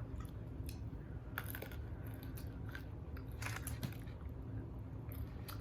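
Close-miked biting and chewing of fried chicken wings, with a handful of short, sharp crunches scattered through, over a low steady hum.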